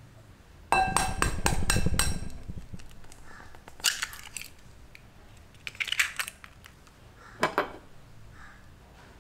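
An egg tapped about five times in quick succession against a glass bowl, the glass ringing with each knock. Then the eggshell crackles three times in short crunches as it is pulled open over the bowl.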